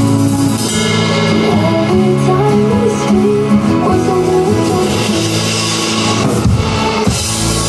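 Rock song with guitar and a sung melody, a drum kit played along with it; near the end the drums and cymbals come in harder and louder.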